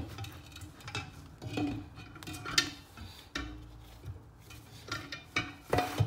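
Irregular metallic clinks, knocks and scrapes as a freezer's reciprocating compressor assembly is rocked and tugged inside its cut-open steel shell. It is still held by the uncut discharge line, so it will not come free.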